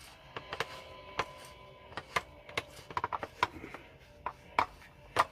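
Irregular sharp clicks and taps of hard parts being handled while a pressure cooker's lid locking mechanism is repaired, about a dozen strikes with the loudest near the end.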